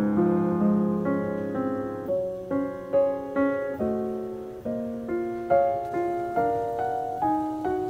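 Background piano music: a slow, gentle melody of single struck notes and chords, each note ringing and fading before the next.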